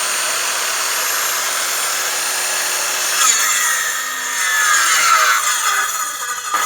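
Circular saw running steadily at speed, then cutting into firewood from about three seconds in. Its whine wavers and drops in pitch as the blade takes the load.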